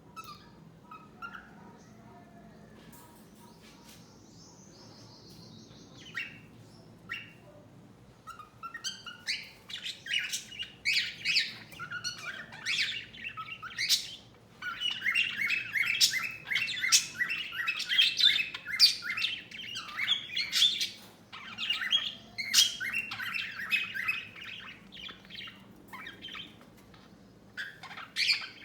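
Budgerigar chirping and warbling: scattered chirps at first, then from about nine seconds in a long, busy run of fast, rapidly pulsed chatter that thins out near the end.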